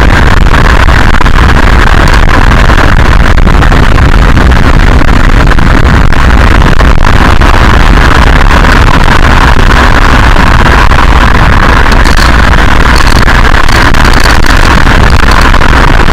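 Loud, steady road and wind noise of a moving VW Golf Mk4 heard up close at the suspension, with many short clicks and knocks scattered through it.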